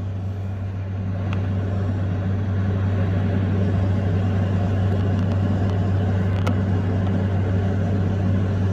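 A steady low hum with an even rushing noise, from a fan or small electric motor running, growing a little louder over the first few seconds. A couple of faint clicks sound over it.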